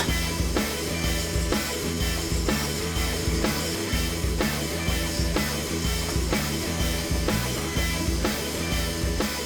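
Rock music with drums and guitar and a steady beat.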